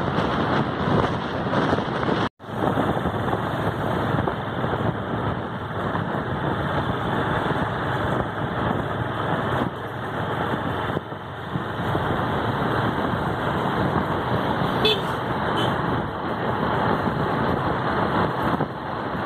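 Steady engine and road noise from a moving vehicle, with wind rushing past the microphone; the sound cuts out completely for a moment about two seconds in.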